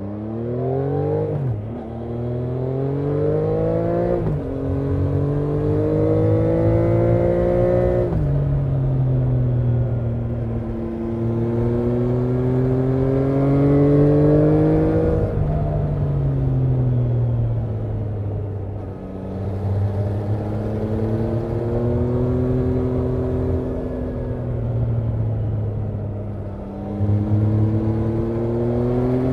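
Triumph Trident 660's inline three-cylinder engine under way. In the first eight seconds it pulls hard through the gears, the pitch climbing three times and dropping sharply at each upshift. After that it eases off and the pitch rises and falls more gently as the rider rolls on and off the throttle.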